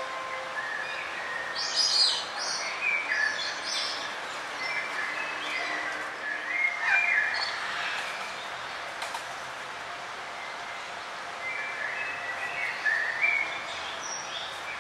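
Forest songbirds chirping and warbling, several short calls overlapping over a steady background hiss. The calls come thickest about two seconds in, around seven seconds, and again near the end.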